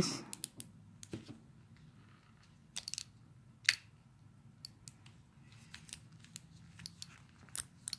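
Sparse, light clicks and taps, about a dozen spread irregularly, from small hard plastic parts being handled.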